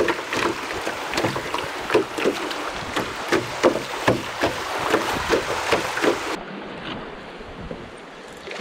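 Water splashing and rushing around a canoe being paddled through moving river water, with many small irregular splashes. About six seconds in it changes abruptly to a quieter, even rush of water.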